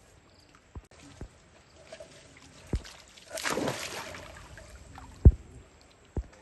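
Pool water splashing and sloshing, with one larger splash just over three seconds in, among several short sharp knocks, the loudest about five seconds in.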